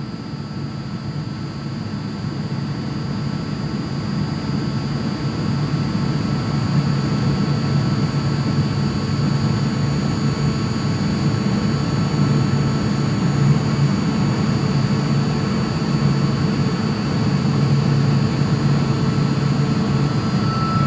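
Atlas Copco GA 11 FF 11 kW direct-drive screw air compressor running on load, pumping its air receiver back up from about 5.3 to 7.3 bar. It is a steady hum and whir that grows a little louder over the first few seconds, then holds.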